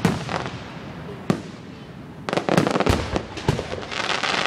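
Fireworks going off: a sharp bang at the start and another about a second in, then a quick run of pops from about two seconds in, turning into a dense crackling near the end.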